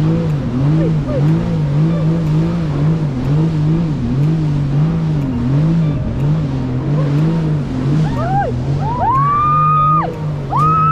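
Jet ski engine running steadily, its pitch wavering up and down about one and a half times a second. From about eight seconds in, high tones swoop up, hold and drop, twice.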